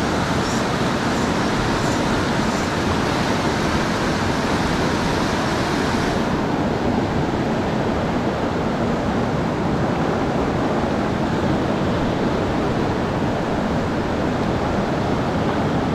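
Whitewater rapids of a fast mountain river rushing in a steady, unbroken noise.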